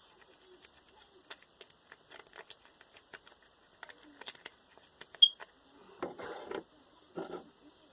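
Homemade glue-and-borax slime being stirred and worked by hand: a run of small sticky clicks, a brief high squeak about five seconds in, then two short, louder bursts near the end.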